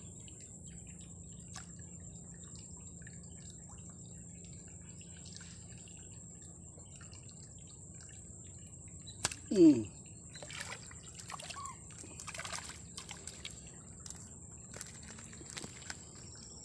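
A hooked tilapia splashing and thrashing at the water's surface as it is played in and lifted out, with water dripping. About nine seconds in comes a brief loud sound that slides down in pitch.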